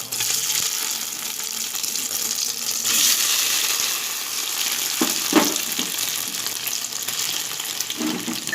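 Cubes of paneer sizzling as they fry in hot vegetable oil in a kadai. The sizzle swells about three seconds in.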